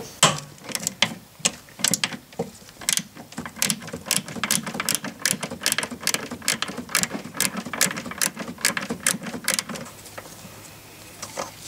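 Ratcheting wrench clicking in quick, evenly repeated strokes as it backs off a 12 mm nut; the clicking stops about ten seconds in.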